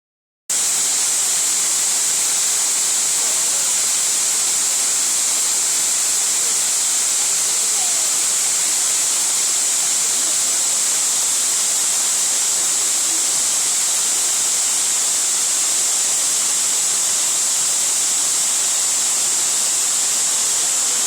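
Mountain stream rushing steadily, a bright, even hiss of moving water that starts abruptly about half a second in.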